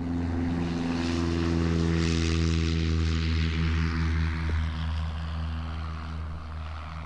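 A propeller-driven light aircraft's piston engine running at a steady pitch. A rushing hiss swells about two seconds in and slowly eases off toward the end.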